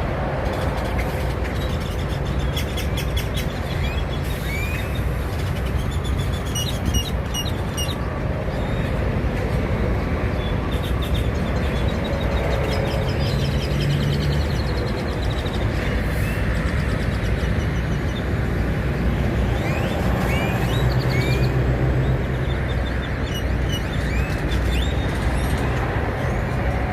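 Birds giving many short, rising chirps over a steady low rumble.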